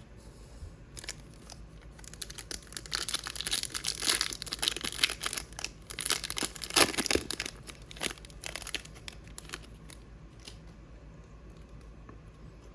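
Wrapper of a hockey trading-card pack being torn open and crinkled: several seconds of dense crackling, loudest in the middle, then dying down to faint handling sounds.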